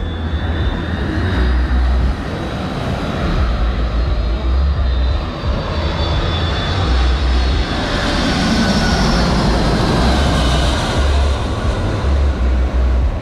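Twin-engine jet airliner on low final approach, its engines whining and rushing louder as it comes in overhead; the sound is fullest past the middle.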